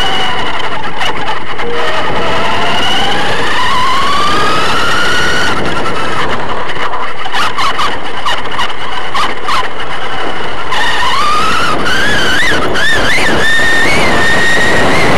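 Radio-controlled short course race car heard from a camera mounted on it: its motor whine rising and falling in pitch with the throttle over a constant loud rush of wind and tyres on dirt. A run of clicks and knocks comes in the middle stretch.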